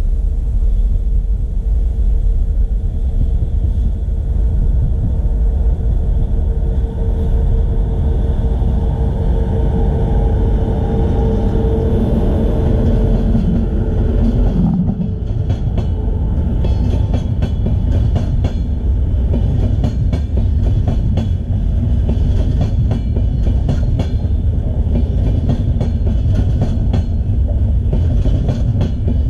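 Express train passing close by at speed. A heavy low rumble with a steady hum runs through the first half. From about halfway on, coach wheels give a rapid, dense clatter.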